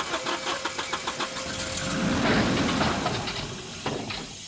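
Cartoon rocket-ship engine sound effect sputtering in rapid, even pulses like an engine trying to start. It swells into a rushing noise about two seconds in and then dies away without catching: the home-made ship fails to start.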